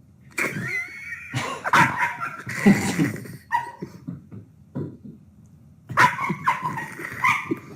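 A dog barking and yipping in short bursts, with a pause of about two seconds in the middle.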